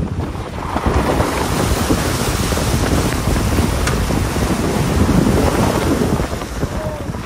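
A car wading through a stream crossing, heard from inside the cabin: water rushing and splashing against the wheels and underbody over a low rumble, easing off near the end as the car climbs out of the water.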